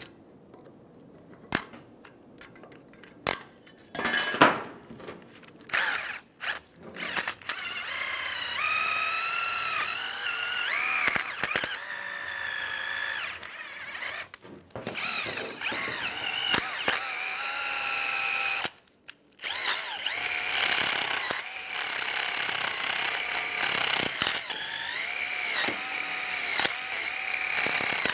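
A power drill spinning a wire wheel brush against a rusty brake caliper bracket, scrubbing off rust. Its high whine rises and dips in pitch as the brush bites, and stops briefly twice. Before the drill starts, a screwdriver scraping at the bracket makes a few sharp clicks.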